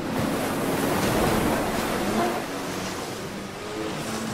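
Ocean surf and rushing water, with a low hum underneath from a rescue jet ski running through the waves.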